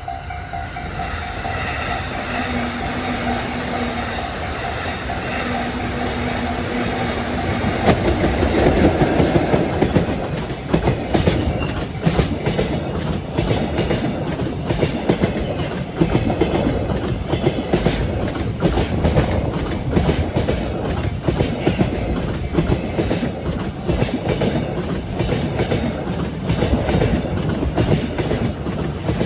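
Level crossing warning bell ringing, then an EF66 electric freight locomotive passes close by about eight seconds in. It is followed by a long train of Koki container wagons, their wheels clicking steadily over the rail joints.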